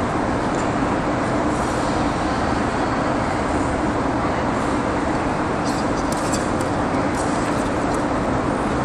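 Steady hum and rush of an ice arena's air-handling machinery. A few faint scrapes of skate blades on the ice come about six to seven seconds in.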